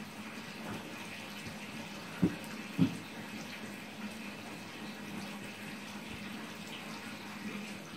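Large dog digging and pawing at blankets on its floor bed, the bedding rustling over a steady hiss, with two low thumps about half a second apart a little over two seconds in.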